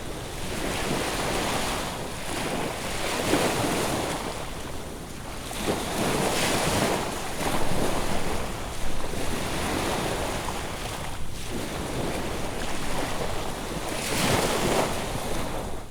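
Ocean surf breaking and washing up a sandy beach, swelling and ebbing every few seconds, over a steady low wind rumble.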